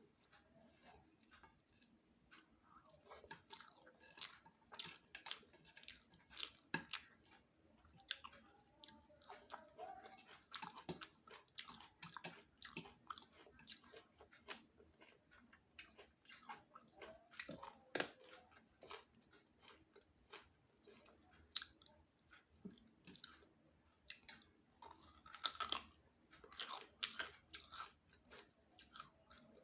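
A person chewing a meal of rice with fish and crab curry: a steady, irregular run of short, soft mouth clicks and crunches.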